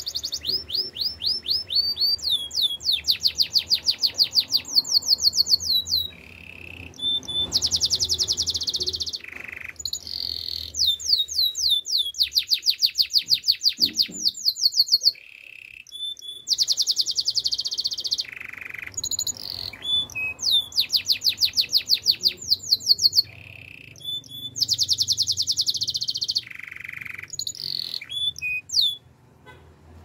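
Canary singing a long song of fast trills, runs of rapid repeated high notes lasting a second or two each, broken by short pauses and a few lower single notes.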